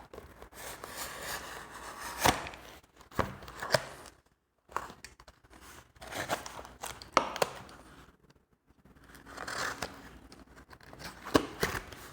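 Packaging being cut and torn open with a blade: irregular scraping and crinkling broken by several sharp snaps and clicks, with a few short pauses.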